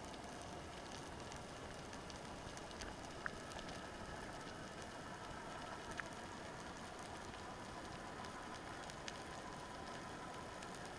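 Underwater ambient noise picked up by a camera in its housing: a steady hiss with a faint hum and a few sharp isolated clicks.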